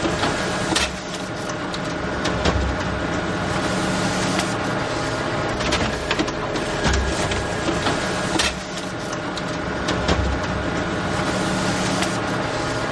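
Photocopier running through a copy job: a steady mechanical whir and hum, broken by repeated clunks as the machine cycles.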